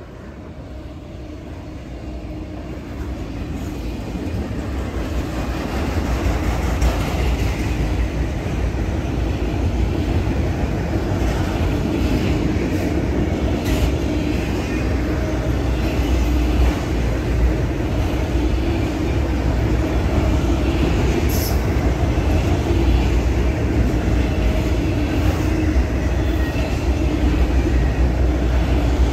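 Freight train cars, covered hoppers and autoracks, rolling past on the rails: a steady noise of steel wheels on track that grows louder over the first few seconds, then holds, with a few faint clicks.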